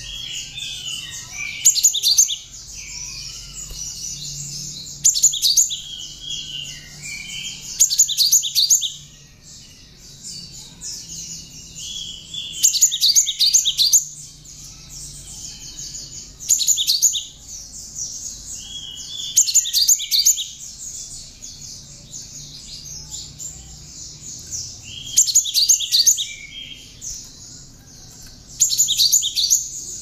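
Cinereous tit (gelatik batu) singing in song learned from the bar-winged prinia (ciblek): continuous high twittering, with a loud burst of rapid repeated notes every three or four seconds.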